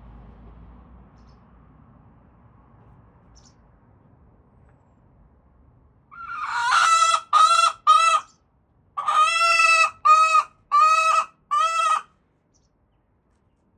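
Leghorn hen giving her loud pre-laying call, the noise hens make when they want to lay. It comes in two bursts of squawking notes about halfway through, three notes and then four, after several seconds of only a faint low hum.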